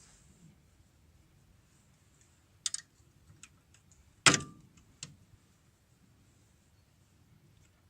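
A few sharp metallic clicks, then one loud metal clank about four seconds in that rings briefly, and a last click: tools and drum brake parts being handled.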